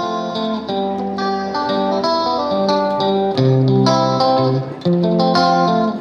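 Instrumental background music: a quick, steady run of plucked guitar notes.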